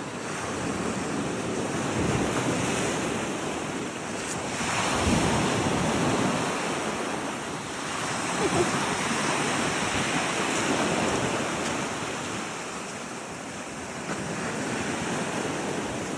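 Waves of the incoming tide washing onto a rocky shore, swelling and easing every few seconds, with wind buffeting the microphone.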